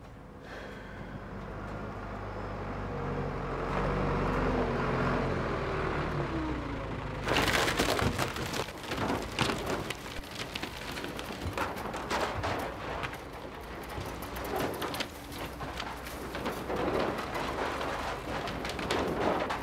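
Backhoe loader's engine running and growing louder, then about seven seconds in a sudden loud crash followed by continuing clattering and cracking as the machine pushes over a wooden shack.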